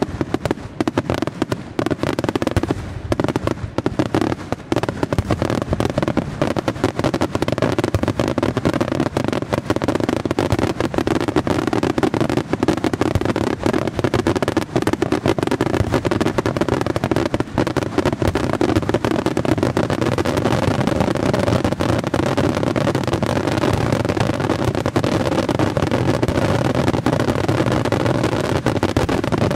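Aerial fireworks shells bursting in a rapid, unbroken barrage of bangs and crackles, growing denser and more continuous over the last ten seconds or so.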